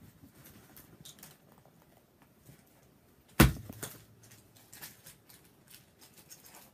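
Small clicks and rustles from things being handled close to the microphone, with one sharp knock about three and a half seconds in.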